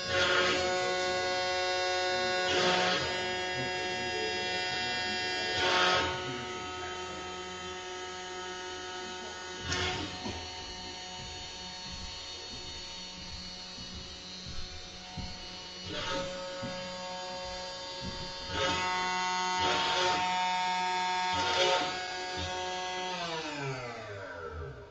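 YoraHome SilverBack 6060 CNC router carving wood: a steady motor whine with louder bursts of cutting noise every few seconds as the bit works through the board. Near the end the whine falls in pitch as the spindle spins down, the job being stopped partway through.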